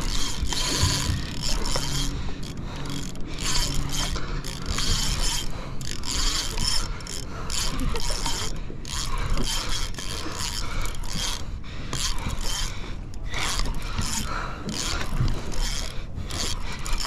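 Spinning fishing reel ratcheting in repeated rasping spells with short breaks, the reel's gears and drag working as a hooked fish is fought and reeled in.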